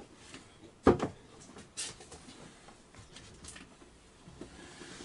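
A single sharp knock about a second in, then two fainter knocks, over quiet room tone in a small cabin.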